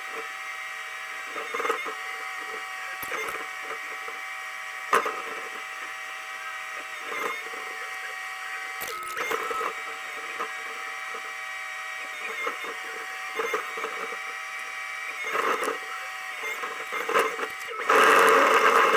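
Hydraulic excavator running, heard from inside the cab: a steady whine with irregular knocks and clanks as the arm and bucket are worked. In the last second a much louder rush of noise cuts in.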